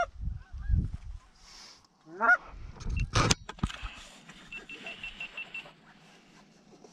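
Canada goose honks: two short rising honks about two seconds apart, then a sharp knock a little after three seconds in.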